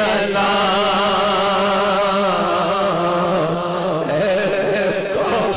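A man singing an unaccompanied Urdu devotional song into a microphone, drawing out one long, wavering melismatic note between the words of the refrain. A steady low drone sounds beneath the voice.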